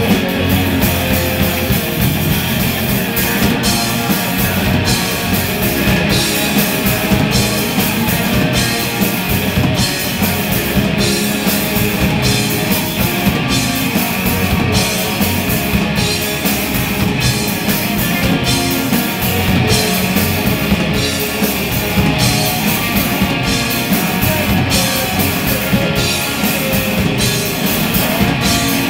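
Rock band playing live: electric guitar and drum kit, with a steady, even beat of drum and cymbal hits.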